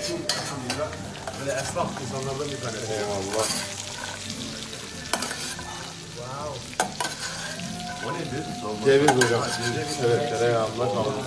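Kebab meat sizzling on a hot metal serving plate, with a metal utensil scraping and clinking against the plate several times.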